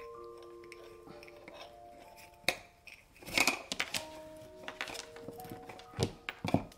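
Soft background music, a slow melody of held notes, with a few sharp clicks and taps from craft materials being handled. The loudest taps come about two and a half, three and a half and six seconds in.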